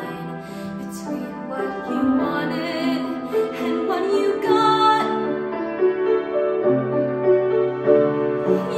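A young woman singing a slow show-tune ballad over piano accompaniment, holding long notes, some with vibrato.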